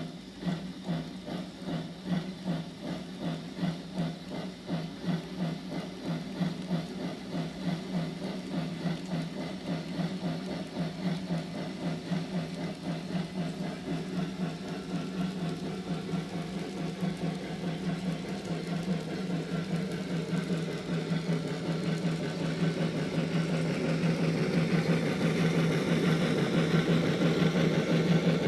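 Steam locomotive exhaust chuffs played through a model railway sound box's speaker. The beats start at about one and a half a second and quicken until they run together as the locomotive picks up speed, over a steady low hum, growing louder throughout.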